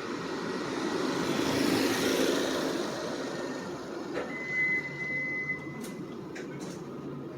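Street traffic: a vehicle passing close by, its noise swelling and then fading over the first few seconds. Then a steady high-pitched tone sounds for about two seconds.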